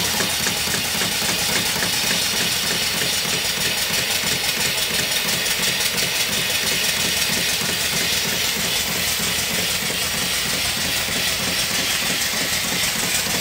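Homemade vertical single-cylinder steam engine running on live steam while driving an alternator, its exhaust puffing in a fast, even beat over a steady hiss of escaping steam.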